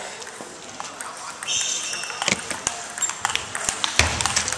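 Table tennis rally: a plastic ball clicking off paddles and the table in a run of sharp hits that echo in a large hall, the loudest a hard stroke near the end. A brief high squeak comes about one and a half seconds in.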